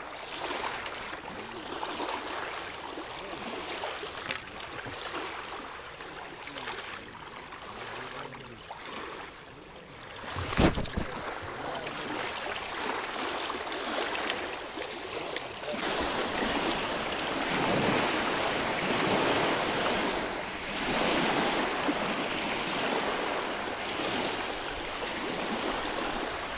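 Rushing water-and-wind noise, uneven and growing louder about two-thirds of the way in, with one sharp knock about ten seconds in.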